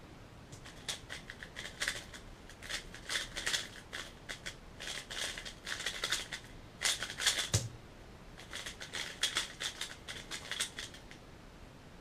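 Valk 3M 3x3 speedcube being turned at high speed in a timed solve: rapid runs of plastic clicks as the layers snap round. A thump about seven and a half seconds in as the hands come down on the laptop to stop the timer, then another short run of turning.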